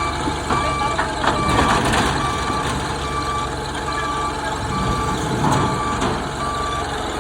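Backup alarm of a JCB 3CX backhoe loader beeping steadily, a little faster than once a second, over its running diesel engine, with a few knocks about a second in.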